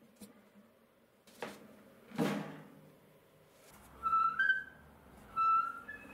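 The seat of an antique piano stool being turned by hand on its threaded height screw. There is a knock, then a brushing rush, then short squeaks that rise slightly in pitch, about a second and a half apart, as the seat turns.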